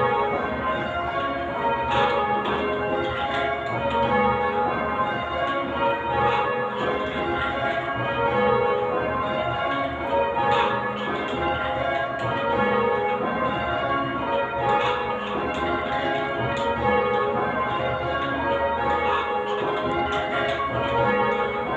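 Ring of eight Whitechapel church bells (tenor 10 cwt in A flat) being rung in call changes: a steady, even round of bell strikes overlapping one another.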